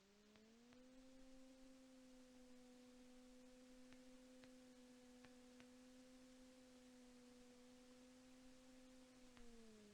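Very faint, steady hum of the Flight Design CTSW's engine as picked up through the intercom, its pitch rising within the first second as power comes up, holding steady, then easing back down near the end.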